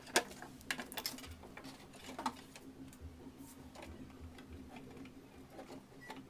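Light clicks and taps of small metal and plastic parts as a submersible pump starter's contactor is unscrewed and taken apart. The clicks are sharpest in the first couple of seconds and lighter after that, over a faint steady hum.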